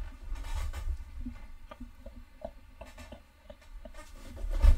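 Faint rustling and light tapping of a person shifting about at a desk, with a louder low thump near the end.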